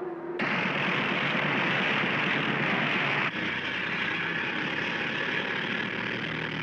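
Cartoon sound effect of a machine switching on: a loud, steady rushing hiss starts suddenly just after a control-panel knob is turned. It breaks off for an instant about three seconds in and carries on, with a low engine-like hum joining near the end.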